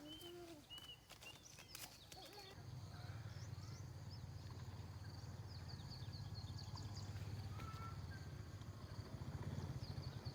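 A low, fast-pulsing engine hum starts about two and a half seconds in and grows louder near the end, with small birds chirping.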